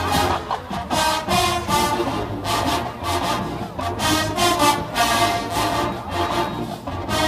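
College marching band playing a brass-led arrangement of 1980s pop music, with drum and cymbal hits accenting the beat.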